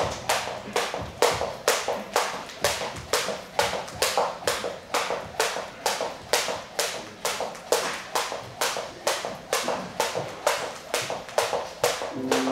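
Skipping rope slapping the floor with each turn as the skipper jumps, a steady rhythm of about three taps a second.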